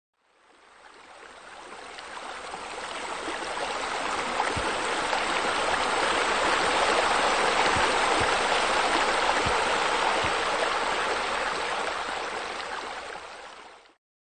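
Steady rushing and splashing of water spilling into a pool from a water feature. It swells slowly in the first half and fades away near the end, with a few faint low knocks in the middle.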